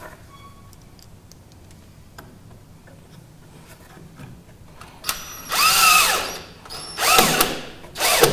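DeWalt cordless drill with a countersink bit boring a pilot hole through the wooden boat stem into the plywood strongback. The drill runs in three short bursts starting about five seconds in, its motor whine rising and falling in pitch, after a few faint handling clicks.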